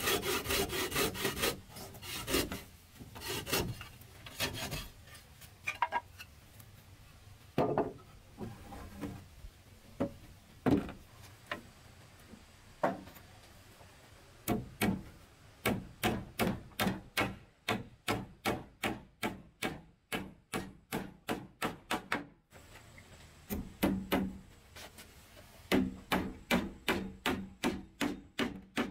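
A hand bow saw cutting through a wooden board at first, then scattered knocks of wood being handled. From about halfway, a claw hammer drives nails into wooden boards in long runs of quick, sharp strikes, about three to four a second.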